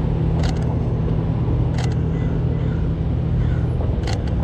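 Three sharp shutter clicks from a Canon 90D DSLR: one about half a second in, one near two seconds and one near the end. Under them runs a steady low vehicle-engine hum.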